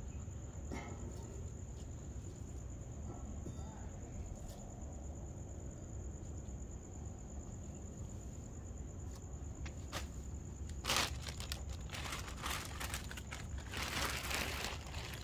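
Plastic bags rustling and crinkling as they are handled, starting about twelve seconds in, after a single sharp click. Before that there is only a low steady background hum with a faint high steady tone.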